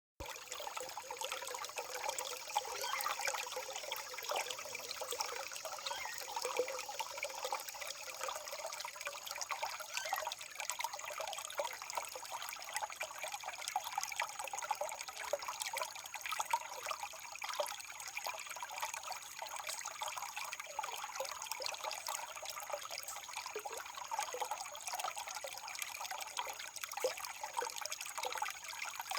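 Natural running water trickling steadily, full of small splashes and drips, light, with no deep rumble.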